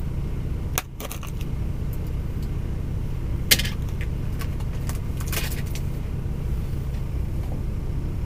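A DAF XF lorry's diesel engine idling with a steady low hum inside the cab, with a few short clicks and rattles of things being handled, the sharpest about three and a half seconds in.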